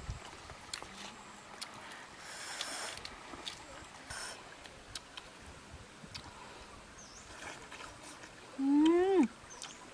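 Two dogs eating cooked goose eggs from a woven tray, with scattered small clicks of chewing and licking. Near the end there is one loud short call that rises and then drops sharply in pitch.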